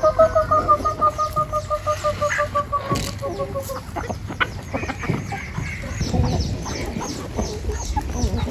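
Chickens: one long, slightly falling call for the first four seconds, then scattered clucks from a flock at feed, with quick high chirps repeating throughout.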